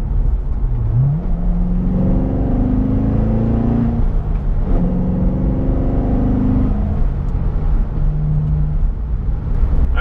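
Chevrolet Corvette C7 Stingray's 6.2-litre LT1 V8 under acceleration, heard from inside the cabin. The engine note climbs, breaks off about four seconds in as a gear changes on the seven-speed manual, then climbs again before settling to a steadier, lower cruise near the end.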